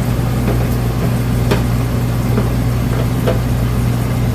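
A steady low hum with a few light clicks and taps as small microwave parts are fitted back into place.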